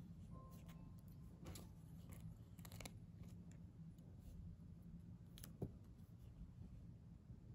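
Faint clicks and light taps of tweezers handling stickers on a paper journal page, with one sharper tick a little after five seconds in, over a low room hum.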